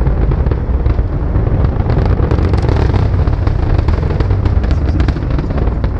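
Falcon 9 first stage's nine Merlin engines heard from the ground during ascent: a loud, continuous low rumble full of sharp crackling pops.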